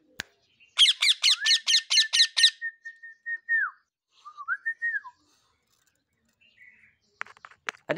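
Pet green parakeet squawking close up: a quick run of about eight harsh squawks, roughly five a second, over a held whistle-like note that ends with a falling slide. About a second later comes one short rising-and-falling call.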